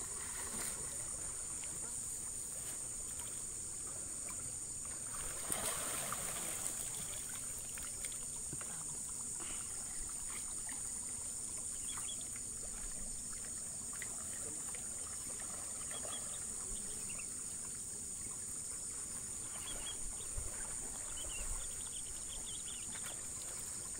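Insects droning steadily at a high pitch, with a brief rush of noise about five and a half seconds in and a few faint ticks.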